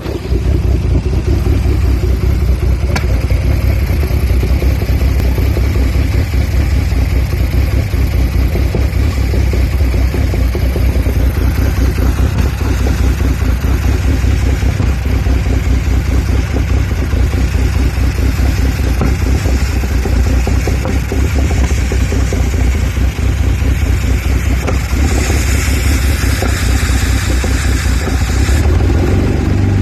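Audi A4 B7's 3.2 V6 idling roughly with an uneven low pulsing: a rough idle that keeps coming back when the engine is cold. A hiss joins in for a few seconds near the end.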